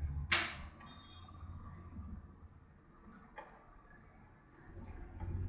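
Computer mouse clicks: one sharp, loud click about a third of a second in, then a few fainter clicks spread through the rest, over a low hum.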